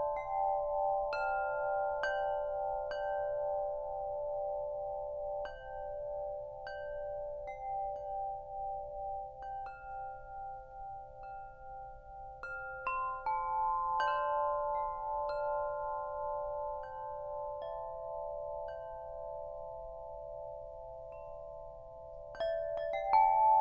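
Corinthian Bells tubular wind chime ringing as its tubes are struck at irregular intervals. Each note sustains for many seconds with a slow pulsing shimmer, so the notes layer into a lasting chord. Near the end the strikes come louder and closer together.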